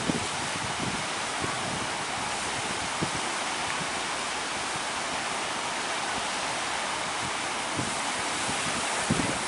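Steady rush of breaking surf and waves, with a few low buffets of wind on the microphone.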